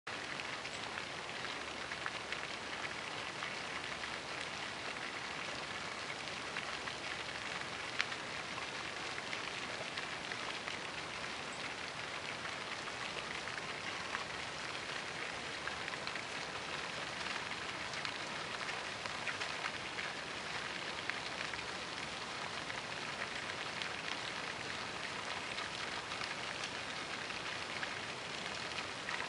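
Pond fountain spraying, its falling water splashing onto the pond surface in a steady, even hiss like rain.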